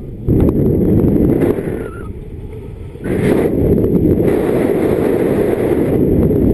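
Wind buffeting the microphone of a camera on a paraglider in flight: a loud, low rumble that eases off about a second and a half in and surges back about three seconds in.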